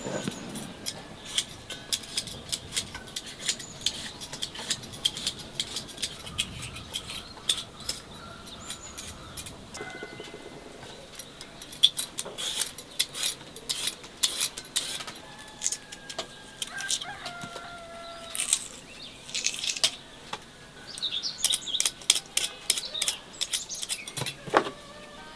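Hens clucking and small birds chirping now and then, over a scatter of short sharp clicks and scrapes.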